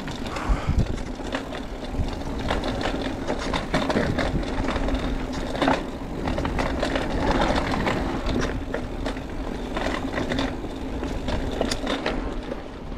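Mountain bike rolling down a dirt and rock trail: tyres crunching over the ground, with the frame and parts rattling in scattered clicks and knocks over a low rumble of wind.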